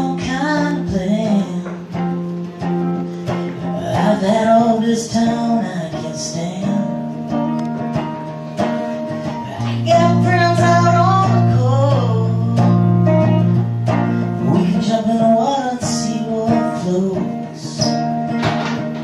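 A man singing a song live in phrases over his own strummed electric guitar. A low guitar note rings under the voice for a few seconds about halfway through.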